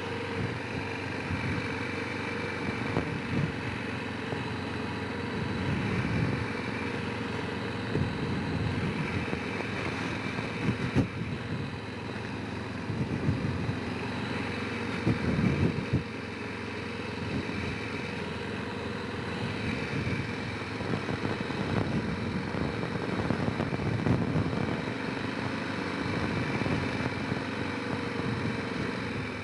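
Honda Rincon 650 quad's single-cylinder engine running steadily at low speed on a forest track, with a few sharp knocks from the machine going over rough ground.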